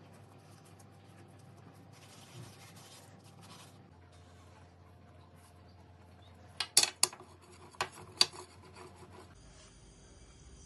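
Soft rubbing and handling of floured dough by hand on a countertop, with a cluster of about five sharp knocks a little past the middle.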